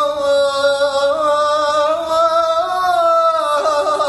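A man singing unaccompanied in the Iraqi style, holding one long note on a drawn-out vowel. The pitch bends slowly, then breaks into quick ornamental wavers about three and a half seconds in.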